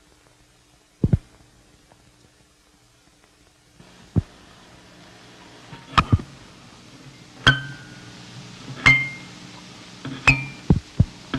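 A series of sharp metallic clinks, each ringing briefly at a different pitch, coming about one every second and a half. From about four seconds in they sit over a low steady hum.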